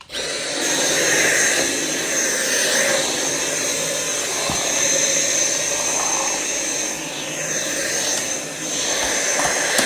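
Dyson V7 Absolute cordless stick vacuum switched on and running: a steady rush of air with a high-pitched whine, with a few faint ticks as it picks things up.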